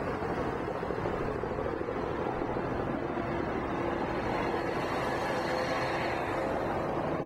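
Steady vehicle noise with a faint hum running through it.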